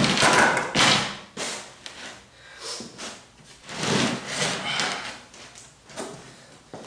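A heavy 3/4-inch plywood board being slid across another sheet of plywood, in a series of short scrapes with a longer drag about four seconds in.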